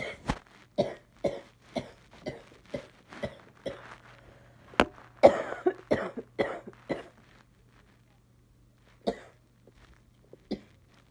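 A girl coughing in a rapid run of short, sharp coughs, about two a second, then after a pause two single coughs. She wonders whether the cough comes from allergies.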